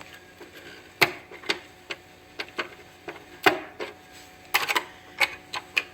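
Irregular sharp clicks and knocks, about a dozen, from the plastic casing of a Brother VX-1120 sewing machine being handled and pried at during disassembly.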